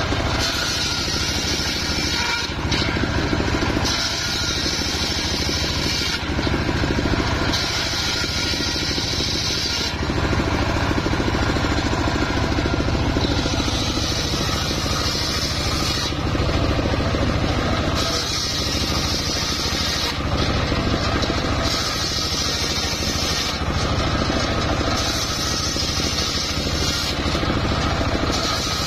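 Homemade circular saw bench running steadily under engine power, its blade ripping mahogany boards. The higher, harsher sound of the blade cutting wood comes and goes in passes of about two seconds, repeating every few seconds over the steady drone.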